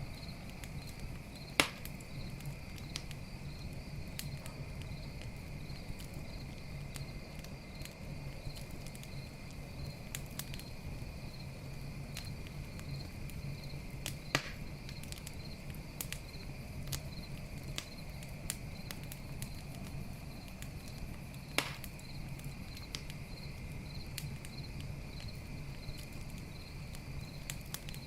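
Campfire crackling with scattered small clicks and three louder sharp pops from the burning wood. Crickets chirp steadily in a rhythmic pulse behind it.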